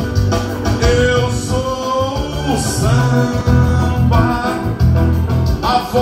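Live dance band playing amplified music, electronic keyboard over a steady bass beat, with a man singing into a microphone.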